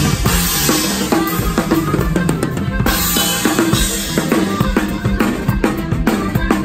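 Drum kit played live, bass drum, snare and cymbal strokes in a fast steady rhythm, with the rest of the band playing along.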